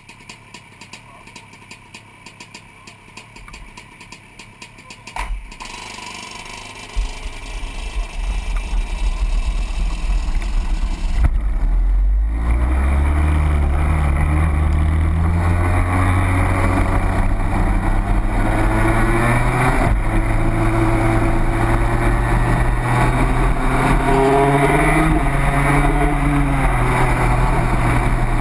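Two-stroke racing kart engine heard from an onboard camera: quiet at first, with a sharp knock about five seconds in. The engine then grows louder and runs hard from about twelve seconds, its pitch rising and falling with the throttle.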